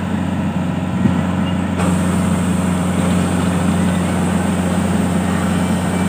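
Mini rice combine harvester's engine running steadily while its unloading auger empties grain into a trolley, with a higher hiss joining in about two seconds in.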